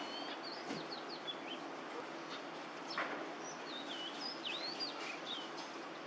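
Eurasian tree sparrows chirping: scattered short, high chirps and slurred notes, in a cluster near the start and another in the second half, over a steady background hiss.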